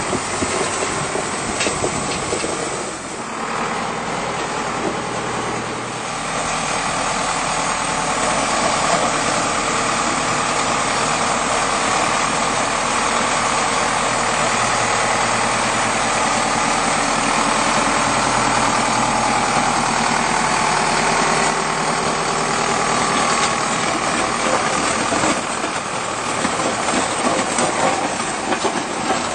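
Zetor Proxima Power 120 tractor's diesel engine running steadily as it tows a ZREMB ZDH 300 road grader, with a steady scraping hiss of the grader's blades dragging over the gravel surface. The sound grows louder a few seconds in and then holds.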